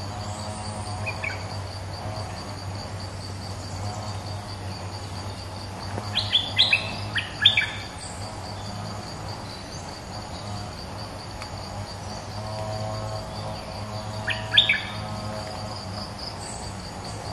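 A bulbul used as a trapping decoy (Thai 'nok dok taeng', Malay merbah) calling from its cage: a brief chirp about a second in, a quick run of sharp chirping notes about six seconds in, and another short run near fifteen seconds. A steady pulsing insect buzz runs underneath.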